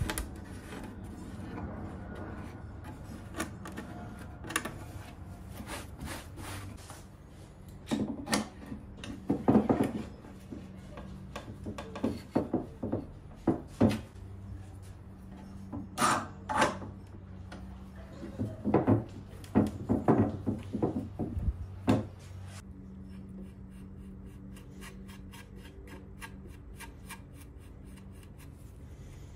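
Hand work on a wooden dresser drawer: rubbing and scattered knocks of wood and a bar clamp being handled, with a cluster of louder clatter in the middle, over a steady low hum. Near the end, a quieter run of quick, even scraping ticks.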